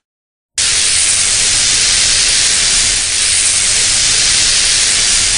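Dubbed-in Force lightning sound effect: a loud, steady electric hiss that cuts in abruptly about half a second in.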